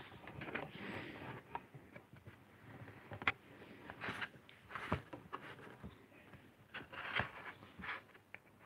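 Hands handling and sliding a piece of lino on a board: irregular light scrapes, rustles and small taps, with a few sharper clicks.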